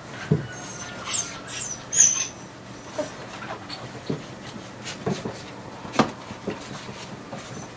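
Australian Terrier puppies squeaking in short, high-pitched squeals, a cluster of them about one to two seconds in, amid scattered small knocks and scuffling as they clamber over a cat.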